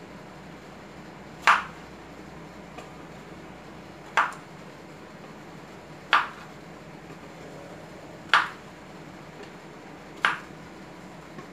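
Kitchen knife cutting through cucumber onto a wooden cutting board: five sharp knocks, one about every two seconds.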